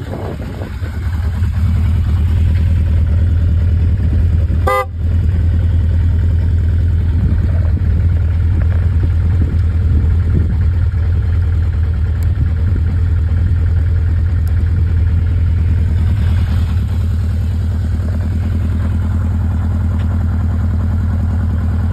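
1981 Honda CB750C's air-cooled inline-four engine idling as it warms up after a cold start: a steady low drone that grows louder about two seconds in. A very short beep-like tone cuts in about five seconds in.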